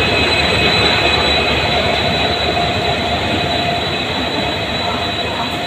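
WDG-4 (EMD GT46MAC) diesel-electric locomotive passing close by, its engine running and its wheels rolling on the rails, with a steady high whine through it. It slowly gets quieter as the locomotive moves away.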